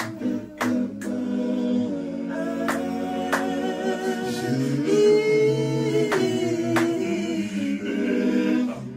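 A cappella male vocal group singing held chords in close harmony, the chord swelling about five seconds in. Sharp clicks cut through the singing, several of them in pairs.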